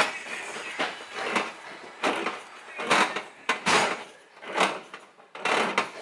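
Manual crank can opener cutting around the lid of a metal can of evaporated milk: a short noisy stroke with each turn of the key, irregularly about once or twice a second.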